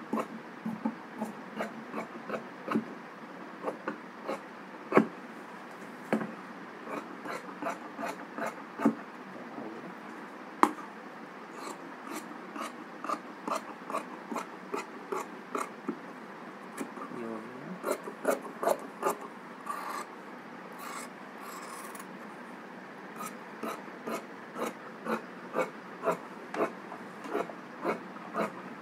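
Long tailor's shears cutting through grey trouser fabric: a run of crisp snips, about one and a half a second, with a few short pauses as the blades are repositioned along the chalk line.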